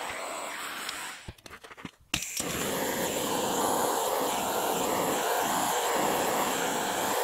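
Hand-held gas torch flame burning with a steady hiss while it heats the seams of a brass radiator tank for soft soldering. The sound drops out briefly about a second in, then comes back just as steady.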